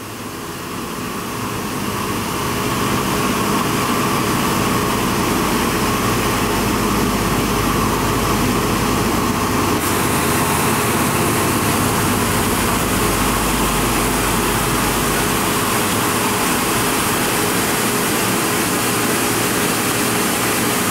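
CNC vertical milling machine cutting a chromoly steel crank arm under coolant spray: a steady wash of spindle and cutting noise with coolant hiss over a constant hum. It builds up over the first couple of seconds, and the hiss turns brighter about ten seconds in.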